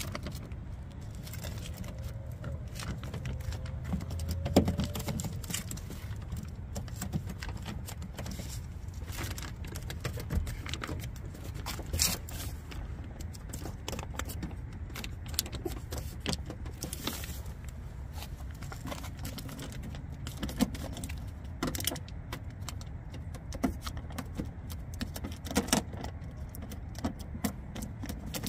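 Plastic door water shield being handled and pressed onto the door's adhesive seal: irregular crinkling and small clicks, over a steady low rumble.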